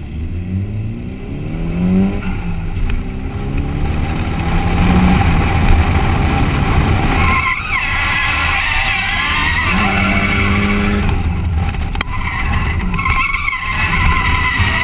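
Nissan 240SX's turbocharged SR20DET four-cylinder revving hard as it pulls up through the gears, heard from inside the car. About halfway through, tyre squeal sets in as the car slides sideways into a drift, with the engine note rising and falling underneath.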